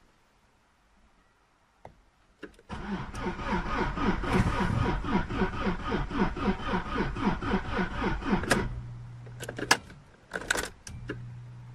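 A 2003 VW Passat 1.9 TDI diesel engine (AVB) cranks on its starter for about six seconds in an even, pulsing rhythm, then stops without firing. The cranking is too slow and weak to start a diesel, which the mechanic puts down to a very weak battery. A few sharp clicks come just before and after the cranking.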